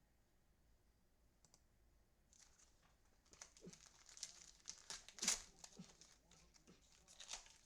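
Plastic wrapper of a trading-card pack crinkling and tearing as it is opened by hand. The crackling starts about two and a half seconds in and is sharpest around five seconds in.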